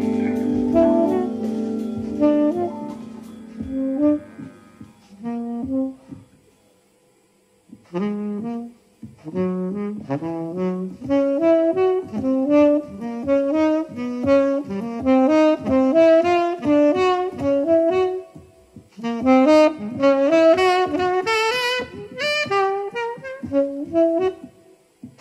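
A held band chord fades out over the first few seconds. After a short pause, a solo saxophone plays fast, freely phrased runs of notes, with brief breaks between phrases.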